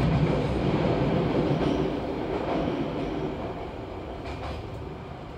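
Fukuoka City Subway 1000-series train running into a station, heard from inside the car. The rail rumble is loud as it enters the station and then fades steadily as the train slows, with a few faint clicks near the end.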